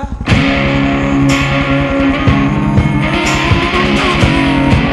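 Rock music with electric guitar, kicking in sharply about a third of a second in.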